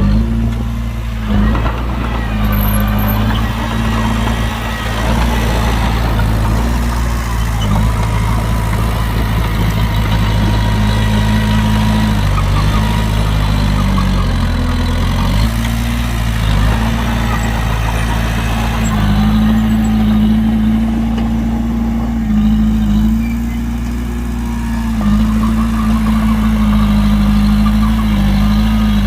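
Heavy diesel engine running at low revs, its pitch shifting a few times as the engine speed changes.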